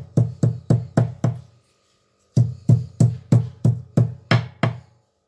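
Pestle pounding betel leaves, tulsi and a peppercorn in a mortar: steady dull thuds about four a second, with a short break just under two seconds in before the pounding resumes.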